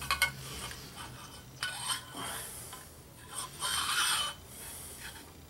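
Pencil scraping on a steel exhaust pipe in a few short strokes, marking a cut line, the longest stroke about 4 s in. Light clicks of the pipe and hose clamp being handled come just after the start.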